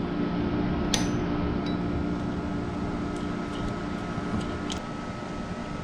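Steady mechanical hum with a constant faint whine over it, and a few light metal clicks of tools and engine parts being handled, the sharpest about a second in.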